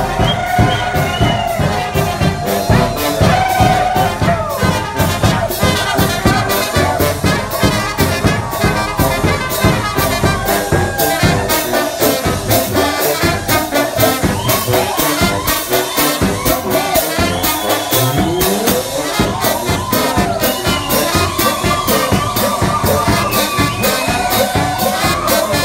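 Live brass band playing a fast dance tune: tuba, trumpets and saxophones, with a bass drum and a cymbal keeping an even, quick beat.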